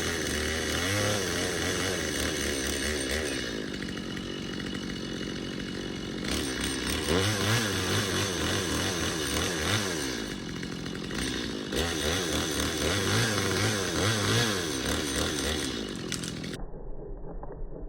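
Chainsaw running, its engine pitch rising and falling over and over as it is revved and eased while cutting dead trees. Near the end it gives way to a quieter, duller sound.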